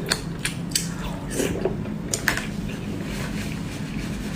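Close-miked chewing of fried pork: soft, wet, squishy mouth sounds with a few sharp clicks, the loudest a little over two seconds in.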